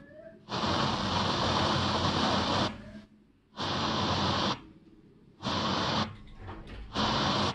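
FM radio static hiss from a converted car-radio head unit being tuned between stations: four bursts of even hiss, the longest about two seconds, each cut off abruptly by silence as the tuner steps frequency.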